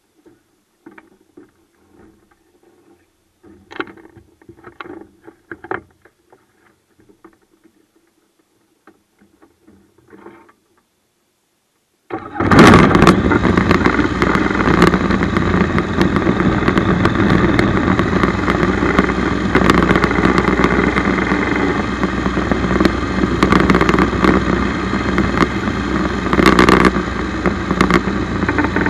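Faint scattered clicks and knocks, then about twelve seconds in the aircraft's Rotax 912 UL four-cylinder boxer engine starts abruptly and keeps running steadily and loudly.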